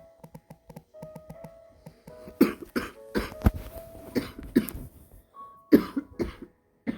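Soft piano notes, then about two seconds in a woman starts coughing: a run of short coughs in several bouts. Quiet music continues underneath.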